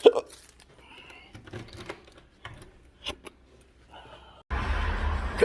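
A man's sharp, loud hiccup, one spasm of a bout of intractable hiccups, followed by faint clicks and rustles. About four and a half seconds in, a steady low rumble of car cabin noise starts abruptly.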